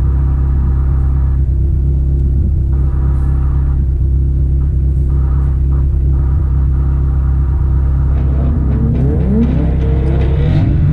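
Car engine idling with a steady low rumble. In the last few seconds it starts rising in pitch as it revs up.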